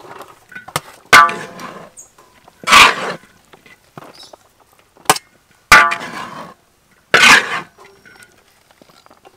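A metal spatula clangs against a large wok and a stainless-steel tray while fried rice is scooped and tipped out. Several sharp metal clangs have a brief ring, and rasping scrapes come between them, about five strokes in all.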